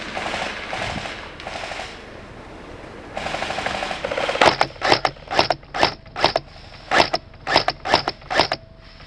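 Airsoft electric gun firing: short full-auto bursts, each a quick buzzing rattle, then from about four and a half seconds in a string of single semi-auto shots, roughly two sharp cracks a second.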